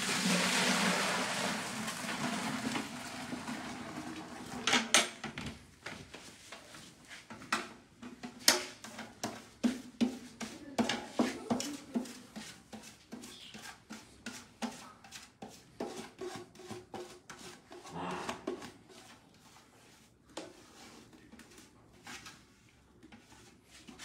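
Milk pouring from a steel bucket into a plastic bucket: a steady splashing stream for the first few seconds, then scattered clicks, knocks and dribbles as the upturned bucket drains.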